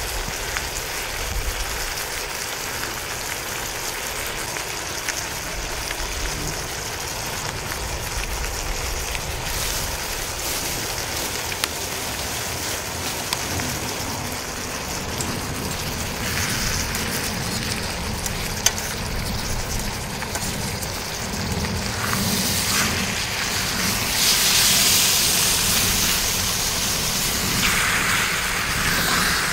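Food sizzling in a hot pan: a steady frying hiss that grows louder about 24 seconds in, with a couple of sharp single clicks.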